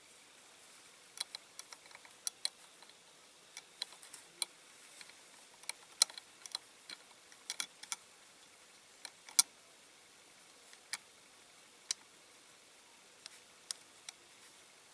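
Irregular small sharp clicks and taps as the small metal and plastic parts of a Corgi Toys diecast model are handled and worked into place. The clicks come thick in the first part and thin out near the end.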